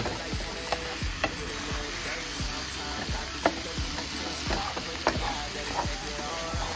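Sliced mushrooms and chopped onions sizzling in butter in a frying pan, stirred with a wooden spoon that knocks and scrapes against the pan at irregular moments over the steady sizzle.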